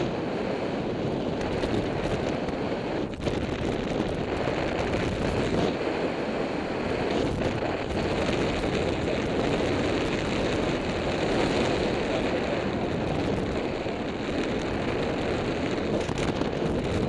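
Wind rushing over the microphone in flight under a tandem paraglider: a steady, rough rush of airflow with a few brief crackles of buffeting.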